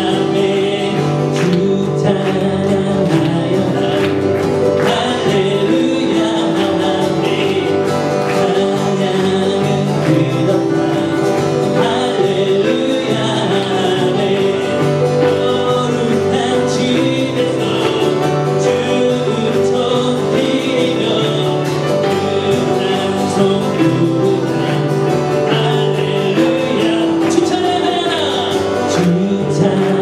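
Praise song: a man singing and strumming an acoustic guitar.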